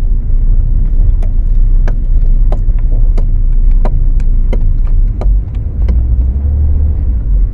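Steady low rumble of a car driving, heard from inside the cabin of a 2012 Ford Focus, with a sharp tick repeating about every two-thirds of a second.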